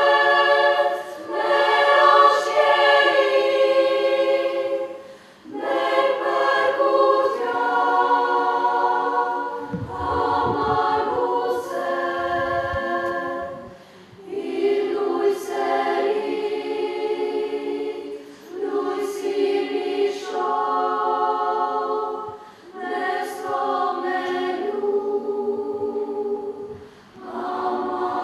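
Children's choir singing together in phrases a few seconds long, with brief breaks between them.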